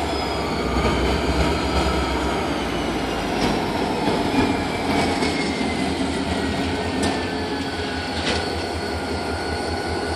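EMD 645 V16 diesel engines of two passing CSX locomotives, an SD50-2 and a GP40-2, working hard under load with a low rhythmic throb, over rolling train noise. A thin high squeal drifts slowly down in pitch, and there are a couple of sharp clicks in the later half.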